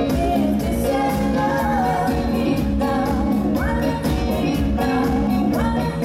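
A live dance-music orchestra plays disco, with strings and singers, over a steady beat. Voices slide up in pitch twice.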